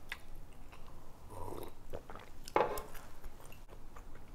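Close-up eating sounds: a sip from a glass, then chewing, with a few sharp clicks and knocks from the glass and fork, the loudest about two and a half seconds in.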